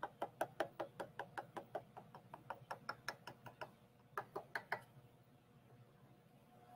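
Light, even knocking, about five knocks a second, of a wooden-handled trimming tool against a leather-hard clay urn turning on a potter's wheel. It stops about three and a half seconds in, and three more knocks follow near the middle.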